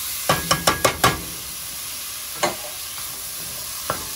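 Chopped Vienna sausages frying in a pot over high heat, sizzling steadily. A quick run of about five sharp knocks comes in the first second, and two single knocks follow later.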